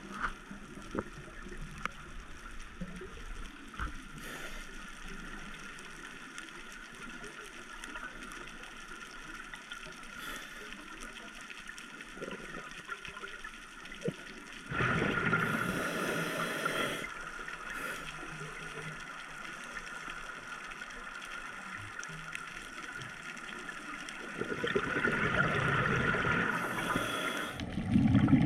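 Scuba diver's regulator breathing, recorded underwater: quiet stretches with faint clicks, then two loud rushing bursts of exhaled bubbles, one about halfway through and one near the end.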